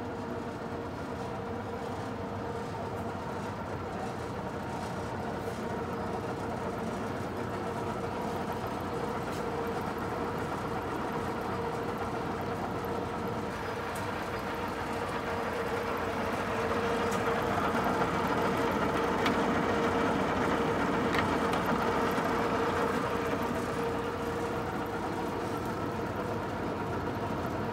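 American Pacemaker engine lathe running under power, its headstock gearing making a steady hum with a constant whine. It grows louder about halfway through and eases a little near the end.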